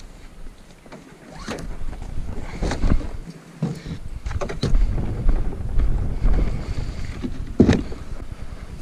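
Wind buffeting the microphone, with a handful of sharp knocks and bumps from a plastic fishing kayak being handled and moved over gravel.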